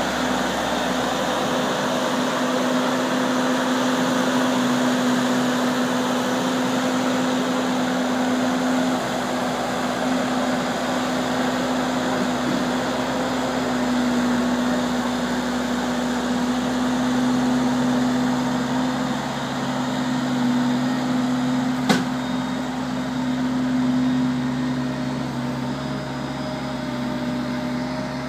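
Avant 635 compact loader's diesel engine running steadily as the machine lifts and carries a bulk bag on its pallet forks. A lower tone joins in about two-thirds of the way through, and there is a single sharp knock near the end.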